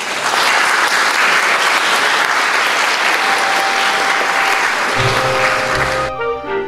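Audience applauding: dense, even clapping that cuts off suddenly about six seconds in, while music with a bass line fades up underneath near the end.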